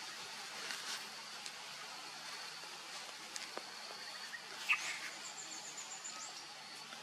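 Outdoor ambience: insects keep up a faint, steady high-pitched buzz. About two-thirds of the way in comes one short, sharp high call, the loudest sound, followed by a rapid high ticking trill lasting about a second.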